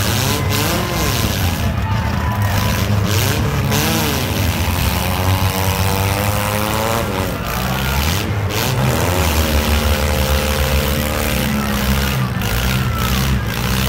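Several compact demolition-derby cars' engines running hard and revving, the pitch repeatedly rising and falling, over a steady low engine drone.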